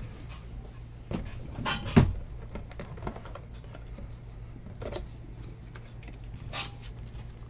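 Scattered light clicks and rustles of trading cards and plastic sleeves and top loaders being handled on a table, with one sharper knock about two seconds in, over a steady low hum.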